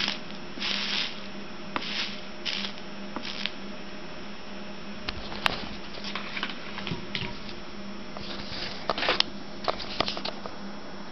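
Soldering iron sizzling in short hisses on the flux and solder of a stained glass panel's copper-foiled seams, with a few sharp clicks in between.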